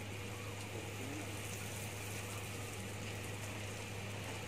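Irrigation pump running at full speed with a steady low hum, while the sprinklers hiss as they spray, with faint ticking from the rotating sprinkler heads.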